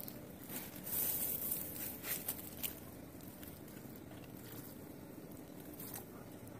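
Faint handling noises: soft rustling with a few light clicks and taps, loudest about a second in.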